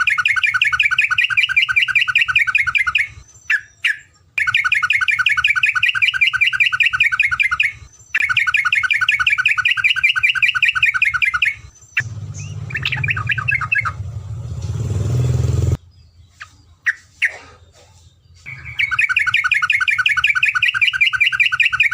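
Terocok songbird singing long, rapid trills: runs of fast, evenly repeated notes lasting about three to four seconds each, with short pauses between. About halfway through, a shorter trill is followed by a few seconds of rushing noise with a low rumble.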